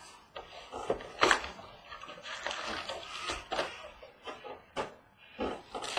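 A cardboard card box being opened and its foil card packs taken out and set down in a stack on a wooden table: rustling, with several sharp taps.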